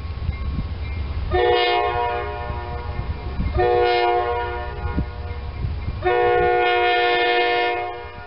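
Diesel locomotive air horn sounding three blasts, each a chord of several notes, the third the longest, from an approaching train.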